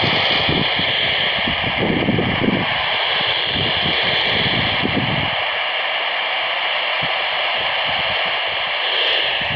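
Steady FM static hissing from a Baofeng handheld's speaker, tuned to the AO-91 satellite's 145.960 MHz downlink between voice transmissions, with a few faint steady tones in the hiss. A fluttering low rumble under it stops about five seconds in.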